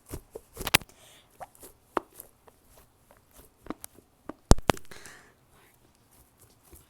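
Scattered sharp taps and clicks from a soccer-ball foam squishy toy being handled and squeezed close to the microphone, with one louder knock about four and a half seconds in.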